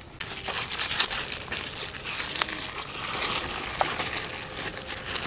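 Thin black plastic bag crinkling and crackling as it is squeezed and handled to push soft white paste out into a steel bowl.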